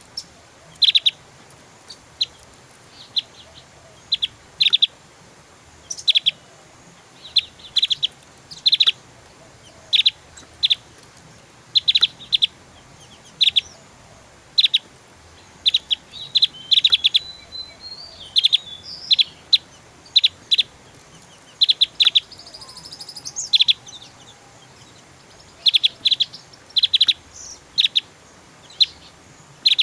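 Javan grey-throated white-eye (opior Jawa) singing in its 'tembakan' style: short, sharp, high notes, some single and some in quick runs, repeated throughout. A few longer twittering phrases break in around the middle.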